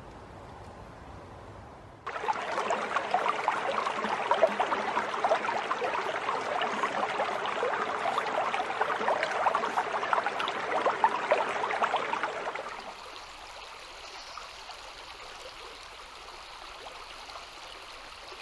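Shallow river water running, starting about two seconds in, loud and close with a busy babbling texture. A little past halfway it drops to a fainter, steady rush.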